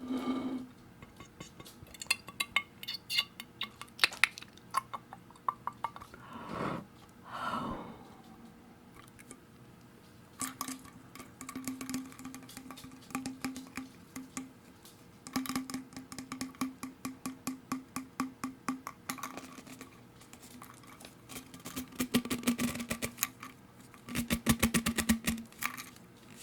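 Rapid tapping on plastic bottles and bottle caps, in quick runs of taps with short pauses between them; the taps ring with a hollow tone. Two brief sliding sounds come a few seconds in.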